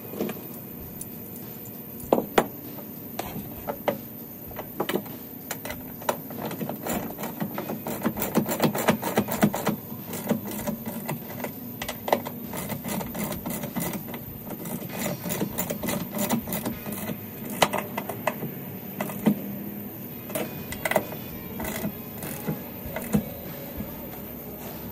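Hand tools and bolts clinking against the steel brackets of a motorcycle wheel-chock mount while a bolt is worked with a wrench: irregular sharp metallic clicks and knocks, thickest about eight seconds in, over a steady low hum.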